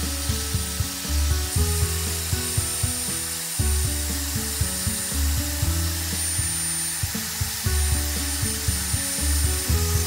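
Wet/dry shop vacuum running steadily with a thin high whine, sucking water and cement slurry off freshly washed concrete, under background music.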